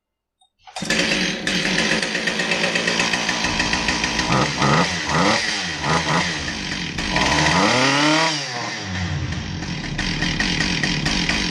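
Husqvarna 572XP two-stroke chainsaw starting up and running. It is blipped up and back down three quick times a few seconds in and once for longer about eight seconds in, then settles back to a steady idle.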